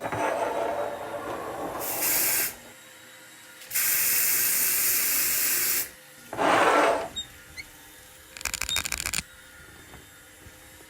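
A series of separate homemade sound effects: a rustling noise, then hiss bursts, the longest about two seconds, a short whooshing rush, and a quick run of rapid clicks like a ratchet.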